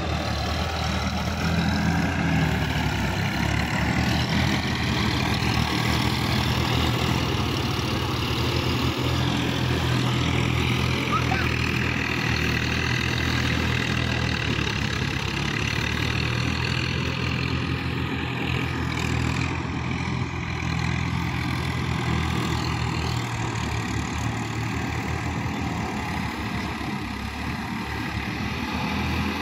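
Diesel tractor engine running steadily while pulling a tillage implement through a flooded paddy field.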